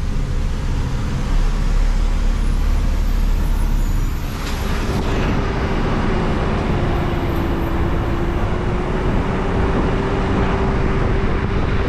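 Heavy truck driving downhill: engine running under road and tyre noise. About four seconds in, a steady whine comes in and holds.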